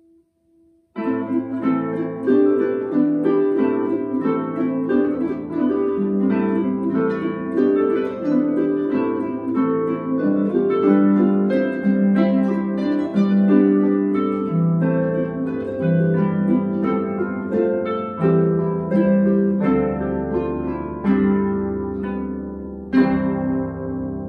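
Two Celtic harps played together as a duo. After a moment of silence, plucked notes start about a second in and run on as a busy, rhythmic pattern over a low bass line, with one strong struck chord near the end.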